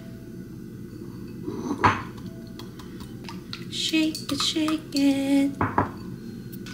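Eggs being beaten in a ceramic bowl with a silicone-coated whisk. There is a single clink about two seconds in, then quick rattling strokes of the whisk against the bowl from about halfway through.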